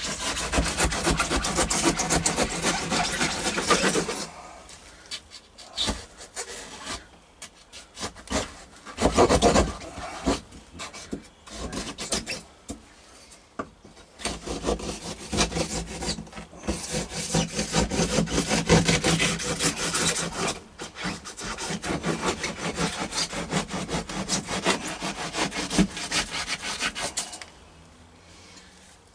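Rasping sawing strokes cutting into the boat's floor, in spells of several seconds with short pauses between.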